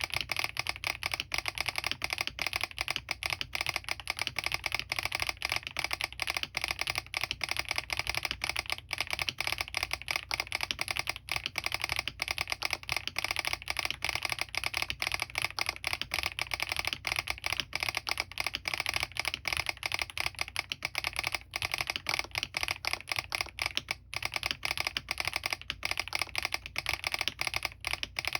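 Fast, continuous typing on a Smurve80 mechanical keyboard fitted with Krytox-lubed HMX Catmint switches, an aluminium plate, full foam and stock doubleshot PBT keycaps, with its solenoid switched on. The keystrokes come in a dense, unbroken stream of clacks with no pauses.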